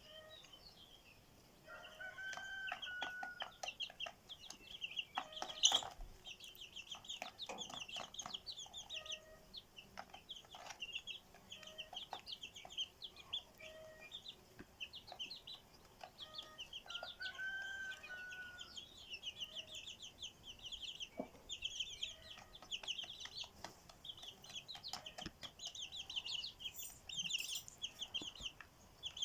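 Chickens: a rooster crowing twice, about two seconds in and again past the middle, among recurring short clucks, over a dense run of quick, high-pitched bird chirping.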